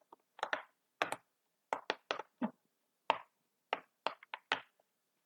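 Fidget toy being played with by hand: a quick, uneven run of about fifteen sharp clicks and pops over four seconds.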